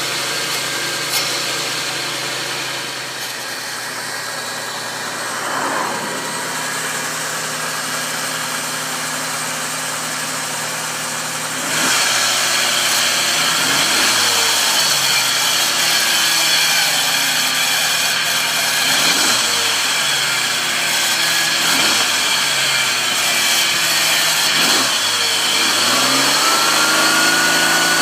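Supercharged 3.3-litre V6 (VG33ER) of a 2002 Nissan Xterra running steadily, then blipped about five times from around halfway, its pitch rising and falling with each rev. Near the end it is held up on a rising high whine. The owner asks whether this strange under-hood noise is the supercharger.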